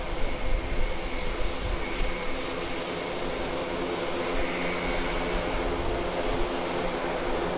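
Airbus A400M's four TP400 turboprop engines running as it taxis: a steady drone with a high whine over a low rumble.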